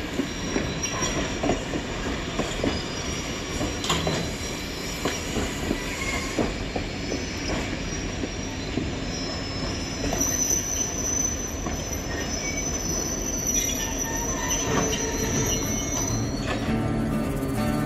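Steel wheels of vintage passenger coaches rolling past at low speed, clicking and clanking over the rail joints. A thin, high, steady wheel squeal sets in about ten seconds in.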